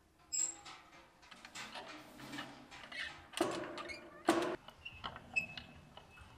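The hand-cranked wooden windlass of a well creaks and clicks as the rope winds in, raising a full metal bucket of water. There are a few louder knocks, and a thin squeak near the end.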